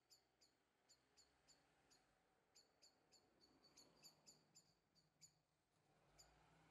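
Near silence: faint room tone with short, irregular high chirps, about three a second, that pause for about a second near the end.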